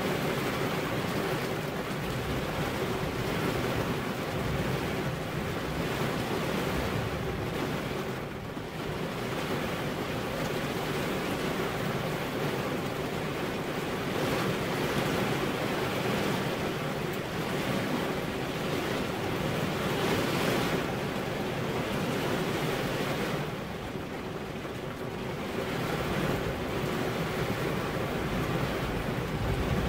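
Heavy rain falling steadily, a dense hiss that eases slightly a couple of times.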